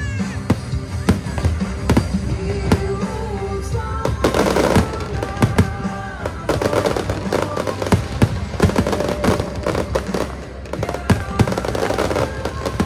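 Aerial firework shells bursting in a fireworks display: many sharp bangs, some in quick succession, with a denser volley about four seconds in. Music plays underneath.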